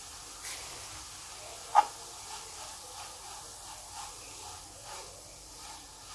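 Grated beetroot sizzling faintly as it fries in a pan, being stirred, with a sharp clink about two seconds in and a few light taps.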